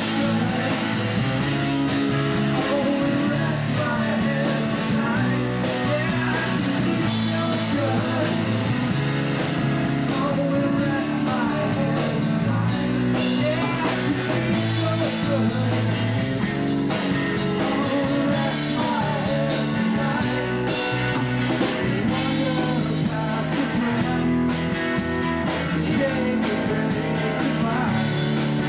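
Rock band playing: guitars with a sung vocal over a steady, continuous groove.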